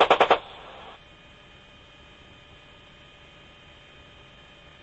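The last few rounds of a burst from an AH-64 Apache's 30 mm chain gun, rapid evenly spaced shots about ten a second, stopping just after the start. It then gives way to a faint steady hum and hiss of the helicopter's recorded audio line.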